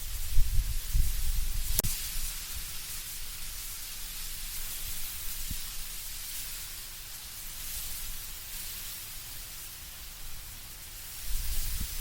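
Wind blowing through autumn trees with leaves rustling, a steady hiss with low gusty rumble at the start and again near the end. A single sharp click about two seconds in.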